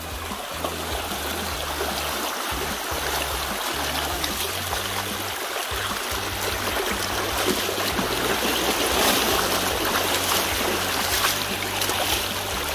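Shallow river rushing steadily over rocks, a little louder in the last few seconds, with water sloshing around legs as people wade across.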